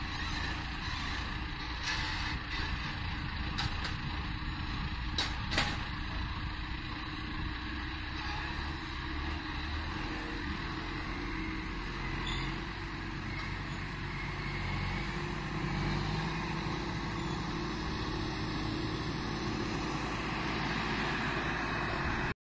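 Heavy diesel machinery running steadily while corn silage is loaded into a truck, with a few sharp knocks in the first six seconds, the loudest about five and a half seconds in.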